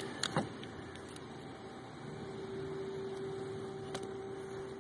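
A few light clicks from the final stage resistor's wiring harness and plastic trim being handled by hand, over a steady hum with hiss.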